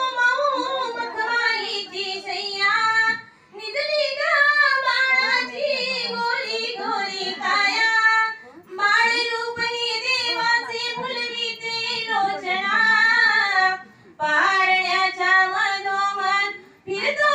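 A high female voice singing a Marathi pāḷṇā (cradle lullaby) solo, in long sung phrases with short breath pauses about every four to five seconds.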